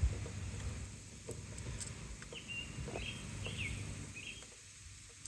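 A small bird chirps a few short calls in the middle, over low outdoor background noise, with a few faint clicks.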